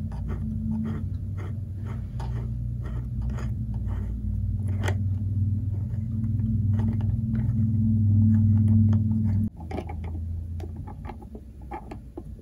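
Small clicks and ticks of hands working a GoPro's plastic mounting hardware, unscrewing and pulling out the thumb screw. Beneath them is a steady low hum that grows louder and then cuts off suddenly about three quarters of the way through.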